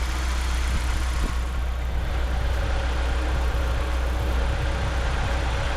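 BMW Z3 1.9i's M44 four-cylinder engine idling steadily, running quietly after its rebuild with a new water pump and thermostat.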